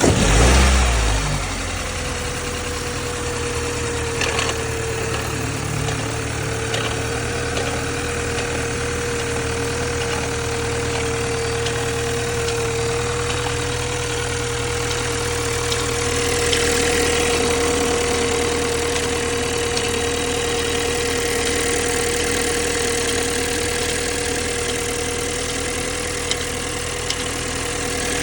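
BMW X3 G01 30i's B48 two-litre turbocharged four-cylinder firing on a cold start, flaring briefly, then settling to a steady idle with a constant whine running through it: the extraneous cold-start noise the owner is recording.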